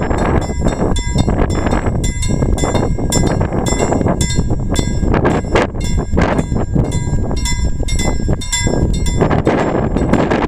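Level crossing warning bell ringing in a rapid repeated pattern of short ringing strokes, half-buried under heavy wind buffeting the microphone.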